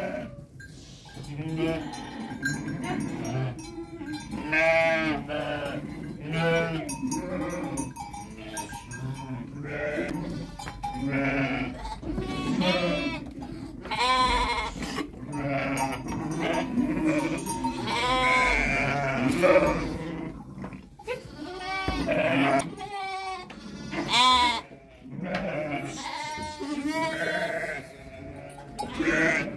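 A flock of sheep and lambs bleating, with many overlapping calls coming one after another, each with a wavering pitch.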